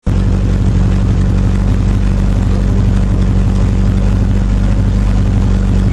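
Rally car's engine idling steadily at a constant pitch, heard from inside the cabin.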